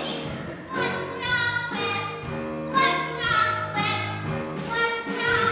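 Girls singing a show tune from the musical with musical accompaniment.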